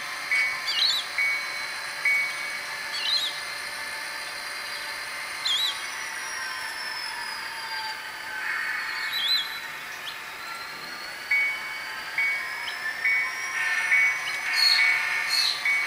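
Intermountain SD40-2W model diesel locomotive's sound decoder playing its bell, about two strikes a second, while the model runs along the track. The bell rings for the first couple of seconds and again from about two-thirds of the way in. In between there is a sound-effect tone that slowly rises and falls in pitch.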